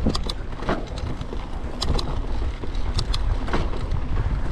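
Kona mountain bike rolling down a dirt trail: a steady low rumble of tyres and wind buffeting the helmet-camera microphone, with a few sharp clicks and rattles from the bike, in pairs near the start, about two seconds in and about three seconds in.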